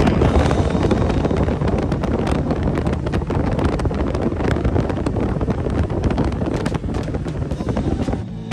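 Wind buffeting a phone's microphone while riding on a moving motorcycle, with engine and road noise underneath.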